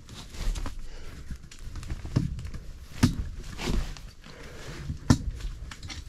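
Camping cot being assembled by hand: the taut cot fabric rustles as it is stretched, and the frame gives irregular creaks and knocks as the last end bar is levered to get the fabric over the edge. There are sharp clicks about three seconds in and again about five seconds in.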